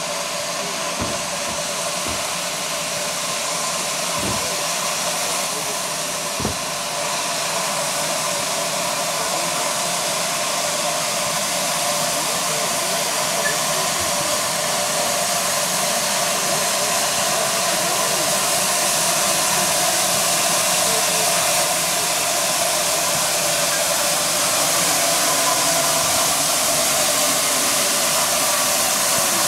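GWR 2884-class 2-8-0 steam locomotive standing with steam hissing steadily, slowly getting a little louder, with a few faint knocks in the first few seconds.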